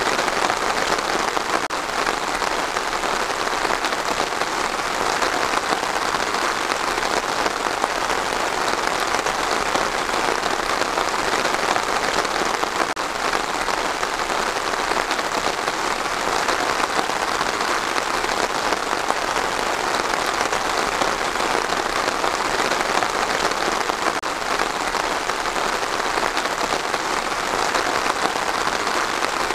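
Steady rain falling on trees: an even, unbroken hiss of many drops.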